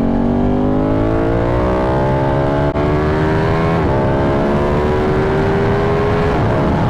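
Ducati 1199 Panigale's 1198 cc Superquadro V-twin pulling under acceleration, the revs slowly rising in each gear, with a short drop at an upshift about four seconds in and another about six seconds in.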